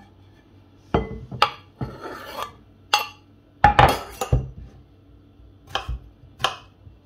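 Diced cucumber scraped off a wooden cutting board with a knife and tipped into a glass bowl: a string of scrapes, knocks and clinks, the loudest cluster about halfway through. Near the end, three knife strokes knock on the board as more cucumber is cut.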